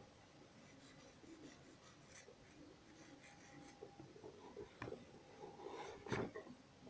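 Faint scratching of a black pencil on paper, with a couple of short, slightly louder strokes near the end.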